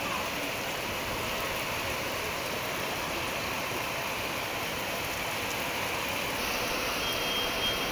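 Heavy rain falling steadily, an even, dense hiss of downpour.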